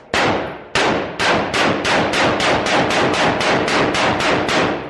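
Rapid semi-automatic gunfire in an indoor range: a firearm fired shot after shot, about sixteen shots at roughly three a second, each with a ringing echo off the range walls, as the magazine is emptied.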